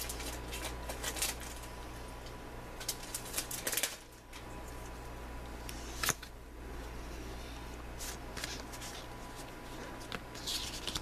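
Pokémon trading cards and their foil booster-pack wrapper being handled: scattered rustling, crinkling and card flicks, with a sharp snap about six seconds in as the cards come out and are fanned.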